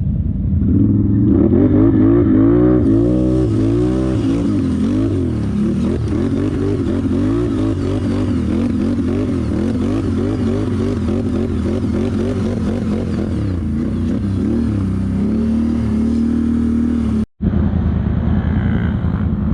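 ATV engine revving hard and unevenly under load, its pitch rising and falling again and again as the throttle is worked on a hill climb. Near the end it settles into a steadier note, drops out for an instant, then runs on.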